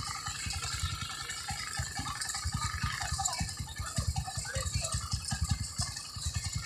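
Large wooden crosses dragged along a concrete road, their trailing ends scraping and rattling over the surface without a break.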